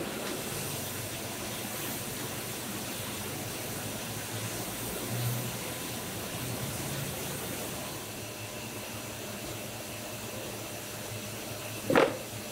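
Steady background hiss with a faint low hum, then one sharp wooden knock near the end as a wooden tofu-pressing frame is handled.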